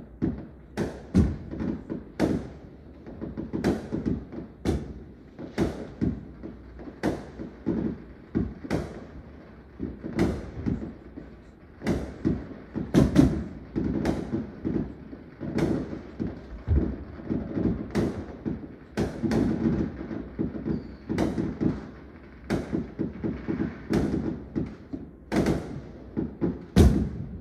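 Aerial fireworks exploding: dozens of sharp bangs at irregular intervals, about one a second, over a continuous low rumble.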